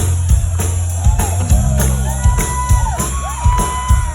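Pop-punk band playing loud live through a big PA, heavy bass and drum hits, with crowd members whooping and shouting over it.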